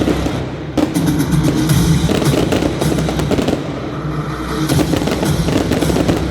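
Fireworks going off, bangs and crackling, over loud music with a drum beat playing along with the display.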